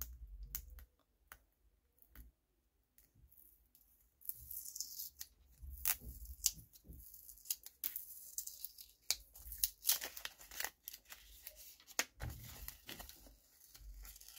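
Paper stickers being peeled off a roll and handled: crisp tearing and clicking in short bursts, starting about four seconds in after a near-quiet start.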